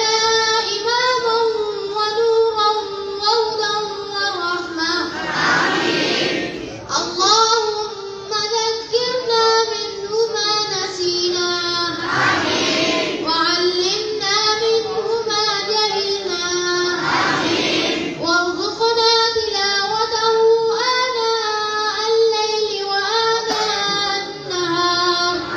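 Children's voices singing together in unison: a slow melody of long held notes that rise and fall, in phrases of about five seconds with short breaks between them.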